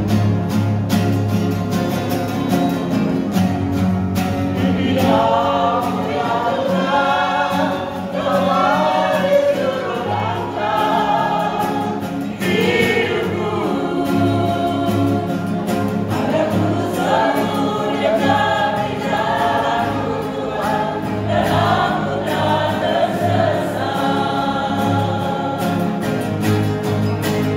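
A choir singing with instrumental accompaniment, a steady bass and a regular beat. The voices come in about five seconds in.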